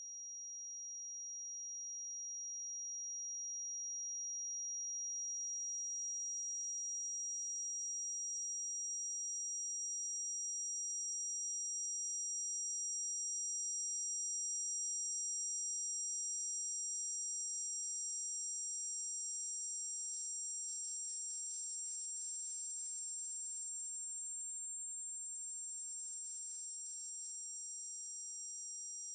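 Synthesized tinnitus-masking tones: a steady, very high-pitched pure tone, joined about five seconds in by a second, slightly higher tone, over a faint hiss. The sound swells in over the first few seconds.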